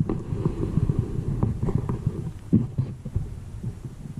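Handling noise carried through the camera mounted on the rifle's scope as the rifle and scope are handled: an uneven low rumble full of small knocks, with sharper knocks about one and a half and two and a half seconds in.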